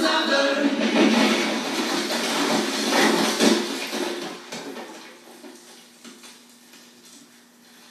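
The last of a pop song playing through small USB water-fountain speakers, dying away over the first four or five seconds and leaving only a faint steady hum.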